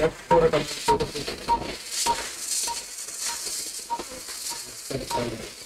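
Patient monitor beeping with each pulse: short, evenly spaced beeps of one pitch, just under two a second, over a background hiss.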